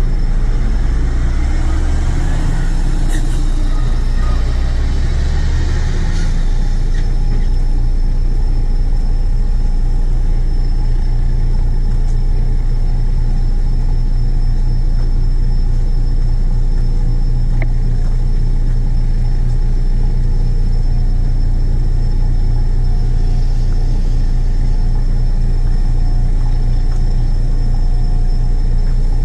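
A heavy vehicle engine running steadily with a low drone, its pitch shifting during the first few seconds.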